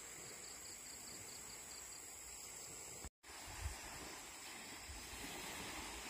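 Quiet outdoor shore ambience: a steady hiss of breeze and gentle surf, with a high insect trill and a run of quick, high chirps in the first half. The sound drops out for a split second about three seconds in, followed by a brief low thump.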